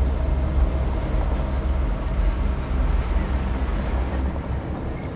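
Deep, steady rumble from a film's sound-design ambience, heaviest in the low bass; its hiss-like top end drops away about four seconds in.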